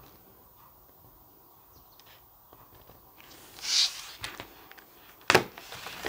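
Quiet hand-crafting noises: faint small ticks, a brief rustling swish past the middle, then a sharp knock near the end as a liquid glue pen is set down on a self-healing cutting mat.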